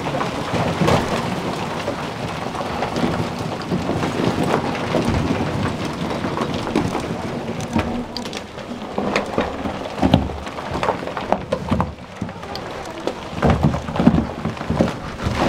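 Feet crunching and sliding on loose chalk debris on a steep chalk staircase, with many small scrapes and knocks.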